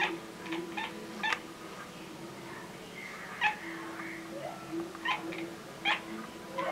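Domestic cat giving short, sharp bark-like calls, a quick string of them, then a pause of about two seconds, then more. It is the excited call a cat makes at prey it sees, here taken by the owner for barking at a bird.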